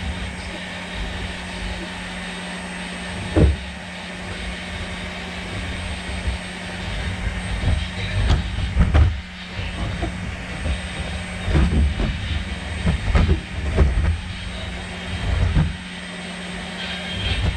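Unitree GO2 quadruped robot dog running: a steady motor hum with irregular thumps and knocks from its legs and body.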